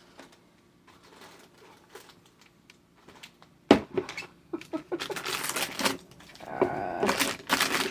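Candy and its plastic packaging being handled: one sharp knock about halfway through, then scattered small clicks, and the crinkling of plastic wrappers or bags over the last few seconds.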